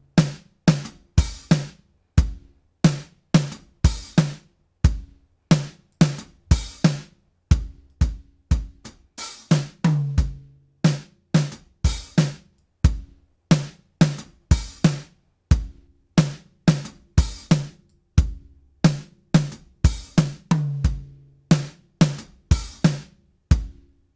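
Drum kit loop, kick, snare and hi-hat, played back through a Waves H-Comp hybrid compressor with a slow attack and medium release, giving punchy hits. It is a steady beat of short, sharp hits with tight decays, the kicks carrying a low pitched boom.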